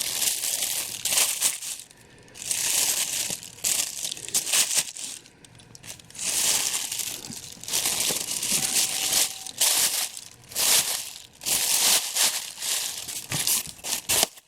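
Packaging being handled and unwrapped, crinkling and rustling in irregular bursts.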